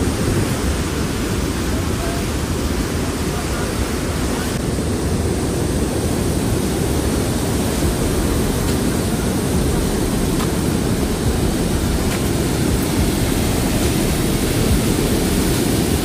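The Rhine Falls pouring at close range: a loud, deep, steady rush of heavy falling water.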